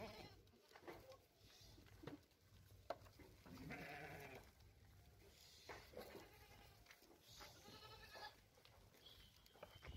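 Osmanabadi goats and kids bleating faintly in a pen: a lower bleat about four seconds in, then higher-pitched bleats later on. There are a few light knocks early on.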